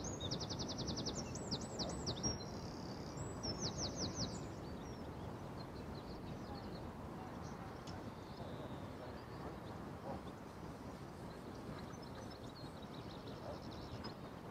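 A small songbird singing a quick series of high trills and rapid repeated chirps for about the first four seconds, over steady low outdoor background noise.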